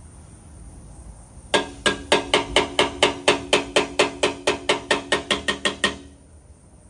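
Rapid light taps on a motorcycle fender, about twenty strikes at four to five a second, each with a short metallic ring, starting about a second and a half in and stopping suddenly. This is typical of a knockdown tool tapping down a high spot during paintless dent repair.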